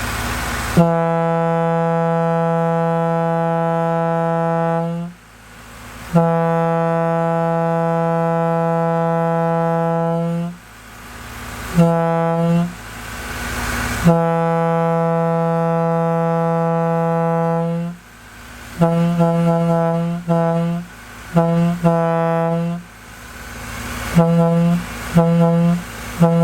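Leslie A200 locomotive air horn blown on compressed air, sounding one steady note. It gives the grade-crossing pattern of long, long, short, long, then a string of short toots.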